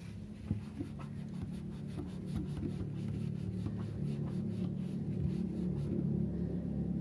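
Hands wiping and rubbing the plastic body of a Hubsan Zino drone with a tissue, with soft rubbing and a few light clicks and taps. Under it runs a steady low hum that grows a little louder in the second half.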